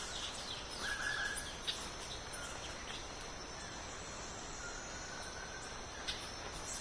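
Forest ambience: scattered short bird chirps and whistles, one clear whistle about a second in, over a steady high insect drone.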